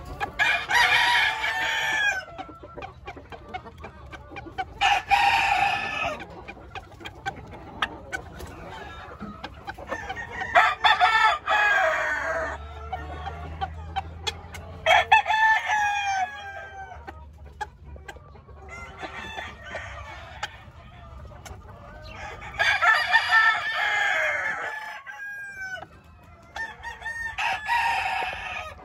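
Game roosters crowing again and again, about seven crows spaced every three to five seconds, each lasting a second or two.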